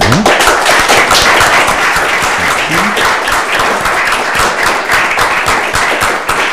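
Audience applauding loudly, many hands clapping at once.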